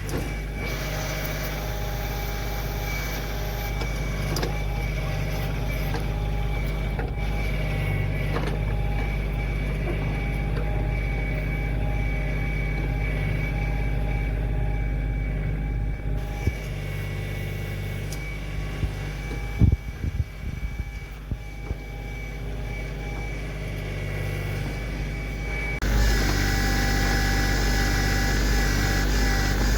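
Kioti CK2610 compact tractor's three-cylinder diesel engine running steadily while the backhoe digs, with a handful of sharp knocks a little past the middle. Near the end the engine gets louder.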